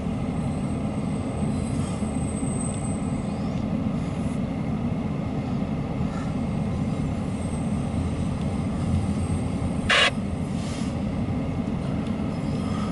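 Empty autorack cars of a freight train rolling past, a steady low rumble of wheels on rail. About ten seconds in, one short sharp burst of noise.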